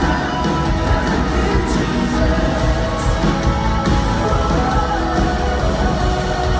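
Live contemporary worship band playing a song: several singers with electric and acoustic guitars and drums, loud and steady throughout.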